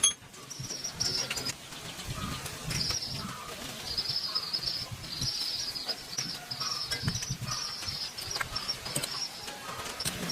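Small birds chirping in repeated short bursts, with scattered light clicks and a sharp knock at the very start.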